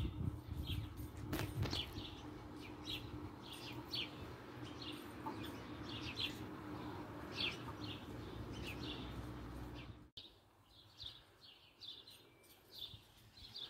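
Small birds chirping over and over, short high calls several times a second, over a low steady background rumble. The rumble cuts off abruptly about ten seconds in, leaving the chirps over a much quieter background.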